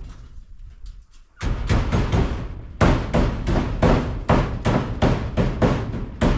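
Hammering in quick, steady blows, about three a second, starting about a second and a half in.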